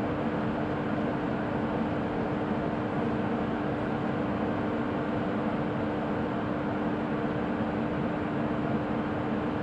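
WAP1 25 kV AC electric locomotive standing energised and idling: a steady, even hum of its transformer and cooling blowers, with one constant tone in it.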